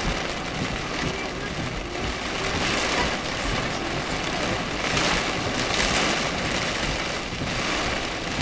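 Heavy rain and wind on a moving car in a thunderstorm, heard from inside the cabin as a steady rushing hiss mixed with tyre noise on the wet road, swelling briefly a couple of times.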